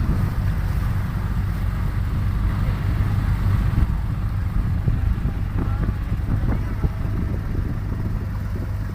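Motorboat engine running steadily under way, with wind rumbling on the microphone.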